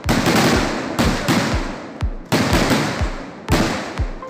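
A ground firework firing a rapid, uneven string of about eight shots. Each shot is a sharp bang with a low thump, followed by a crackling hiss that dies away.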